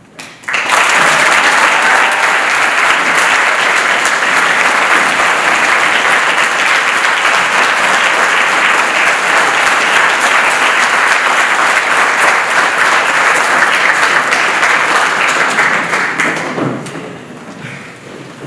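Hall audience applauding loudly, a dense clapping that starts suddenly about half a second in, holds for some fifteen seconds, then dies away near the end.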